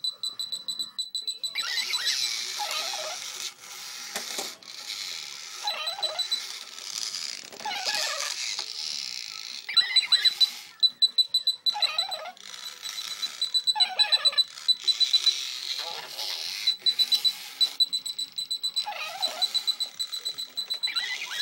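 Battery-powered remote-control toy (a robot crab) giving out an ear-piercing, rapid high-pitched electronic beeping at one steady pitch, broken every couple of seconds by bursts of buzzy electronic sound effects.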